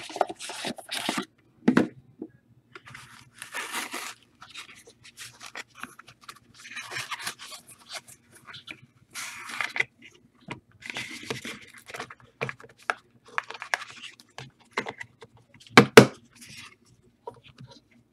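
Packaging of a box of sports trading cards being opened by hand: tearing, rustling and crinkling of wrap and cardboard, and scraping as the contents are handled. A sharp knock comes near the end.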